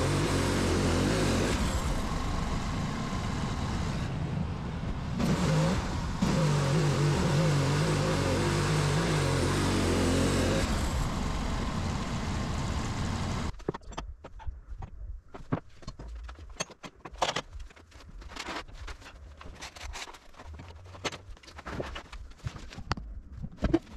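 Norwood LumberPro HD36 portable bandsaw mill running, its engine and band blade sawing through a white pine log. About 13 seconds in, the sound cuts off suddenly to a much quieter stretch of scattered knocks and clacks as sawn boards are handled.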